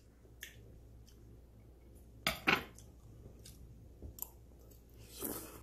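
Someone eating with a metal spoon: a few separate clicks and clinks of the spoon and mouth noises of chewing, the loudest about two and a half seconds in.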